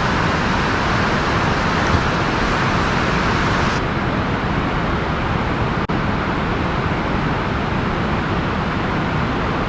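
Steady outdoor rushing noise with no clear pitch or rhythm. It dulls slightly about four seconds in and drops out for an instant near six seconds.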